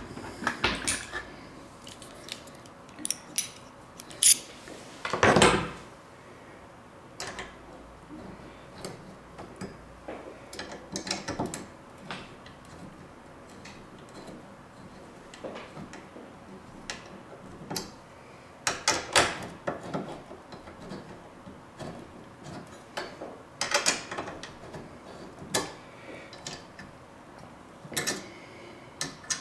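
Irregular clicks, taps and clatter of a small metal hand tool and metal parts being handled inside an open rack-server chassis. The sounds come in scattered clusters, the loudest about five seconds in.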